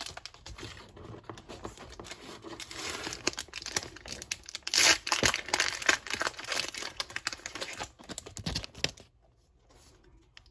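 Foil Pokémon Sun & Moon booster pack wrapper being torn open and crinkled, a dense crackling rustle that is loudest about five seconds in and stops about nine seconds in.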